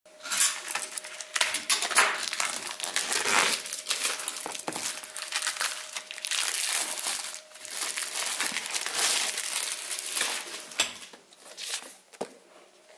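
New packaging wrap being torn open and crinkled by hand, in dense irregular crackling bursts. There is a single sharp tap near the end, then the sound dies away.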